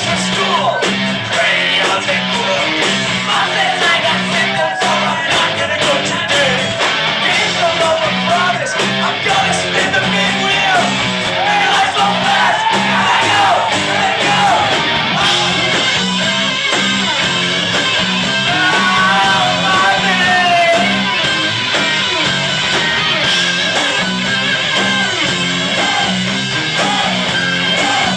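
Loud live rock music: a band playing electric guitars over a steady beat.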